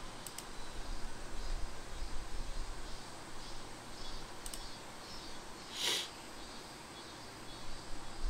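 Quiet room tone with a few sharp computer mouse clicks near the start and about four and a half seconds in, a short hiss about six seconds in, and a faint low rumble in the first few seconds.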